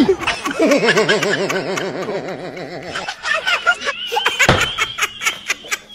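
A person snickering: a rapid, pulsing 'heh-heh-heh' laugh held for about two and a half seconds, opening on a loud sudden sound and followed by quieter scattered sounds.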